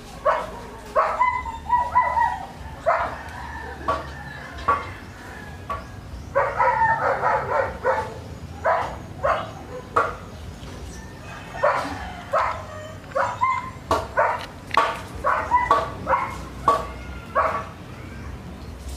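Animal calls: many short, sharp cries or yips in irregular clusters, densest about six to eight seconds in and again in the latter half.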